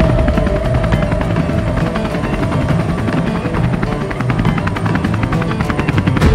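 Helicopters in flight: a rapid, steady beat of rotor blades, with music underneath.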